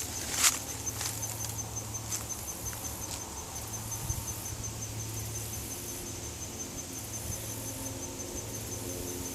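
An insect trills steadily in a fast run of high pulses. A footstep crunches dry leaves about half a second in, with a couple of fainter crunches in the next two seconds.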